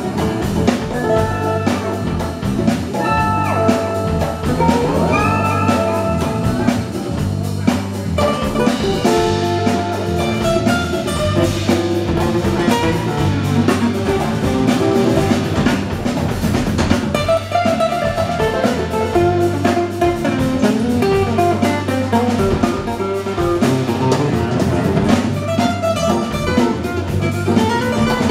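Live unplugged band playing: two acoustic guitars over a bass guitar line and a hand drum keeping a steady beat.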